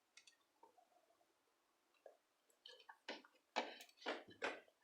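Near silence, then in the second half a quick series of short, faint clicks and scrapes from the speaker amplifier board and its battery connection being handled as the unit is switched on.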